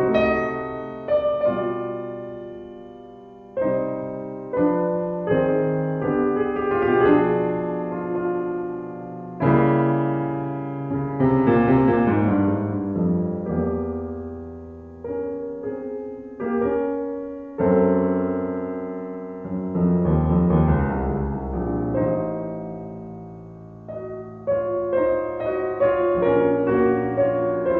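Solo piano music: notes and chords struck one after another, each left to ring and fade.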